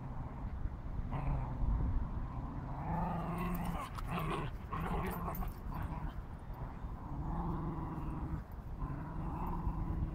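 Dog play-growling during a tug-of-war over a rope toy, in repeated low growls each about a second long.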